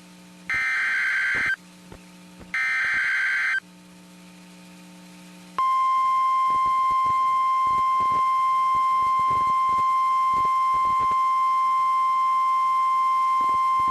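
Emergency Alert System weather-radio alert. Two SAME header data bursts, each a harsh buzzing screech about a second long, come about a second apart. After a short pause, the steady single-pitched 1050 Hz NOAA Weather Radio warning alarm tone starts and holds.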